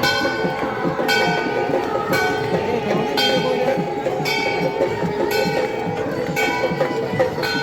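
Temple bell struck over and over, about once a second, each strike ringing on over a steady dense background din.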